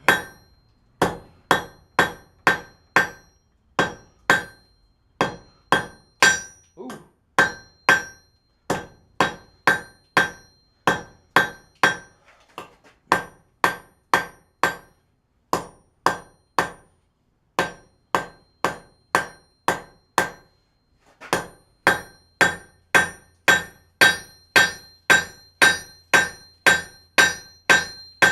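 Blacksmith's hammer striking hot steel on an anvil, about two blows a second, each with a ringing tone, flattening and spreading out the end of a bar into a leaf. The blows pause briefly about twelve seconds in and come faster near the end.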